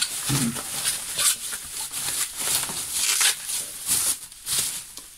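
Plastic packing material rustling and crinkling in irregular bursts as it is handled and pulled out of a parcel around a bottle.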